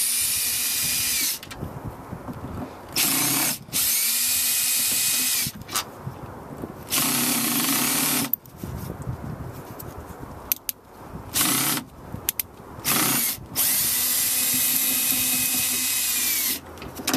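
Cordless drill/driver backing out the Torx bolts of a car's rear door latch. It runs in about six short bursts of whirring, each under a second to about three seconds long, with the motor's pitch falling away as each one stops.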